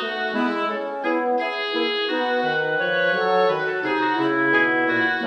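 Instrumental background music of held notes and chords that change every half second or so.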